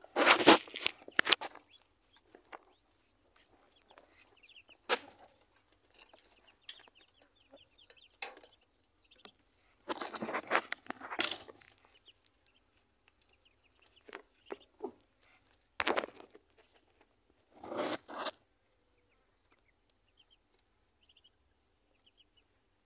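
Ducklings peeping faintly with short, high calls scattered throughout, broken by a few louder, short bursts of noise: near the start, around ten seconds in, and twice near sixteen to eighteen seconds.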